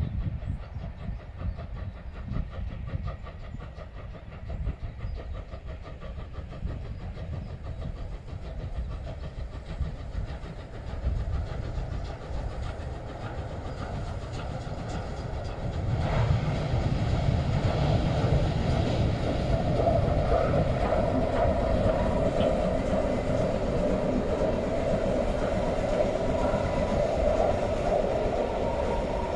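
Class 52 two-cylinder 2-10-0 steam locomotive hauling a passenger train past, with the running noise of locomotive and coaches on the rails. The sound grows louder about halfway in and stays loud as the train goes by.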